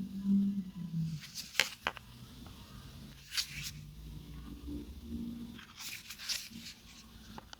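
Phone packaging being handled during unboxing: three short spells of rustling and tearing, like plastic film or cardboard being pulled and scraped, about a second and a half, three and a half and six seconds in.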